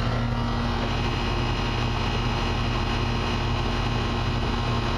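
13-series split air-conditioning system's outdoor unit running steadily, a constant hum with an even rushing noise. It is running normally now that a matching coil has replaced the mismatched cap-tube coil.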